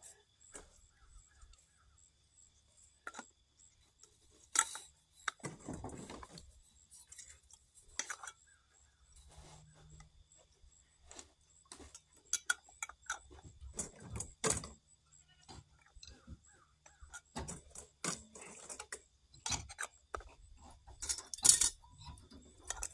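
Metal canning lids clinking and tapping as they are taken from a stainless steel bowl and set on glass mason jars: scattered light clinks with quiet gaps, the loudest near the end.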